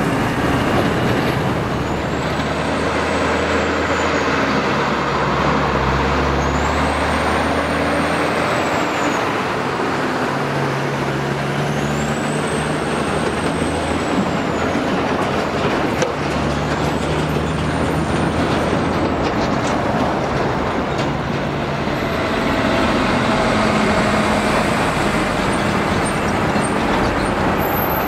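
Heavy diesel trucks hauling multi-trailer road trains driving past: a steady engine drone and tyre noise, with the engine note shifting in pitch and a high whine that rises and falls about four times.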